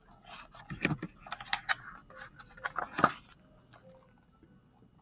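Pages of a picture book being handled and turned: a run of paper rustles and light taps, with two sharper knocks, one about a second in and one about three seconds in.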